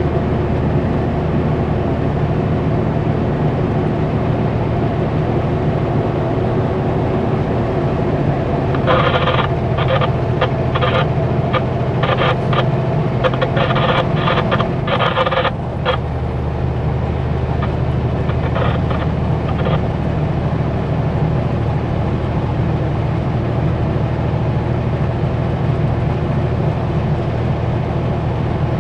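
Kenworth W900L semi truck's diesel engine running steadily while driving, heard from inside the cab. About a third of the way in, a run of rapid, irregular clicks lasts several seconds.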